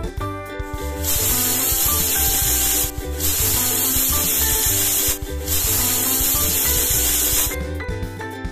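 Stovetop pressure cooker whistling: steam escaping past the weight valve in a loud hiss that starts about a second in and runs for several seconds, broken twice briefly, as the cooker reaches pressure. Background music plays underneath.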